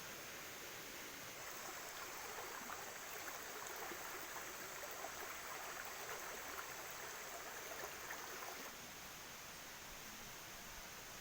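Steady rain falling: a dense hiss scattered with small drop ticks. It is heavier through the middle and eases a little about three-quarters of the way through.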